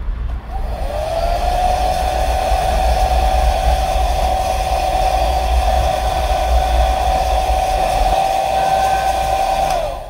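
Hair dryer running: its motor whine rises as it starts about half a second in, holds steady over a rush of air, then drops and cuts off just before the end.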